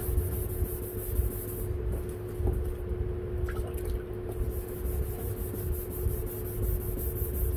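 Hand wet-sanding of a plastic headlight lens with 500-grit sandpaper, a wet rubbing and scrubbing that goes on without a break, over a steady hum.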